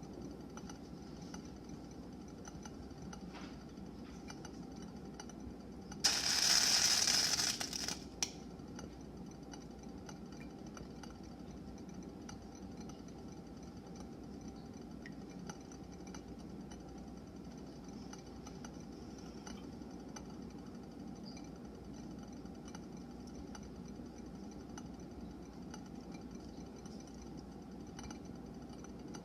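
Condensed drops falling from an ice-filled container into a pot of heated water on a stove, heard as faint scattered ticks over a steady low hum. About six seconds in, a loud hiss lasts nearly two seconds and ends with a sharp click.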